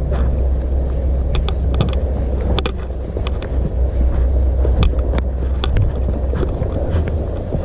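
Steady low wind rumble on the microphone, with scattered short clicks and scrapes of a hiker scrambling over rock.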